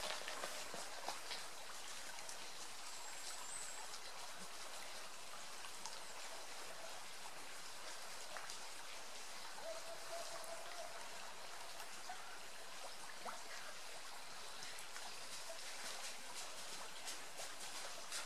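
Steady, faint outdoor hiss, with light footsteps of runners passing near the start and again near the end.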